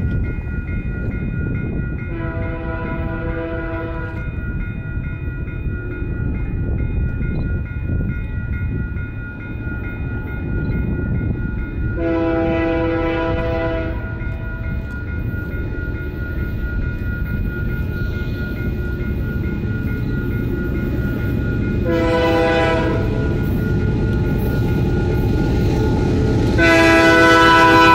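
A CPKC freight locomotive's air horn sounds four times over the rumble of the passing train: two long blasts, a short one, then a long one starting near the end. This is the long, long, short, long pattern sounded for a grade crossing. A faint steady high whine runs underneath.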